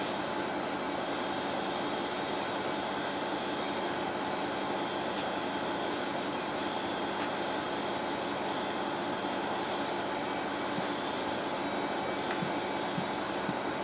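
Steady hum inside a standing Mitsubishi Fuso Aero Midi route bus: the diesel engine idling and the air conditioning running.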